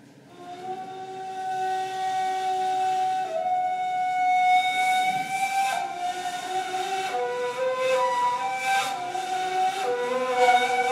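Ney, the end-blown reed flute, playing long, breathy held notes in a slow improvisation. The sound swells in about half a second in out of near quiet, and the held pitch shifts a few times, with a lower note joining around two thirds of the way through.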